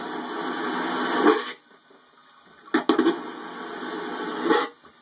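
Cruise-ship vacuum toilet flushed twice. Each flush is a loud rush of suction lasting about one and a half to two seconds. It swells just before the valve shuts and cuts off suddenly.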